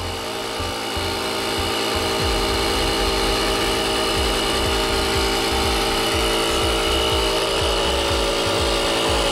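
JF.EGWO 3000A jump starter's built-in air compressor running steadily as it inflates a car tire toward its preset 20 PSI cut-off, with a steady high whine over a fast low pulsing. It grows slightly louder through the stretch.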